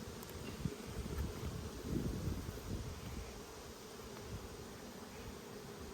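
Honeybees buzzing around a freshly opened nucleus hive, a faint steady hum.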